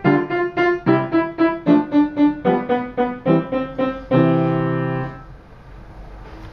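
Yamaha piano playing quick repeated notes, about four a second, a study in note repetition with changing fingers. It ends on a final chord, held about a second, then released.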